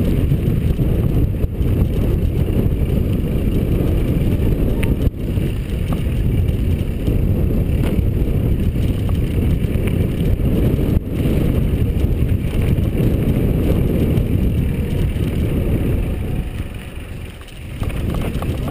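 Riding noise from a mountain bike descending a dirt singletrack: a steady low rumble of wind buffeting the camera microphone and tyres on the trail, with a few short knocks from bumps. The noise eases briefly near the end as the bike slows at the bottom of the trail.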